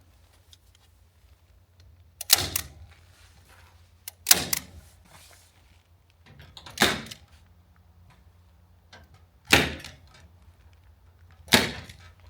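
Five loud, sharp knocks, one every two to three seconds, some with a quick second hit.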